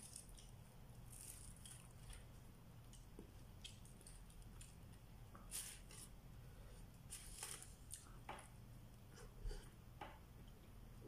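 Faint, scattered crinkles of aluminium foil and a plastic bag, with soft chewing, as food is picked up and eaten by hand, over a low steady hum.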